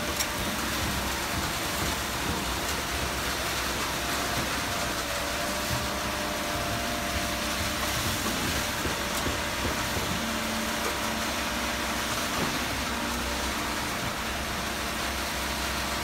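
Truck-mounted concrete boom pump running steadily under load, its diesel engine and hydraulics driving the pump as concrete is pushed through the boom and end hose.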